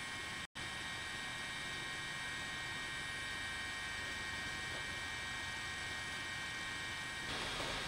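Helicopter cabin noise: a steady drone with several high, even whining tones over it. The sound drops out for a split second about half a second in, and it grows a little louder and rougher near the end.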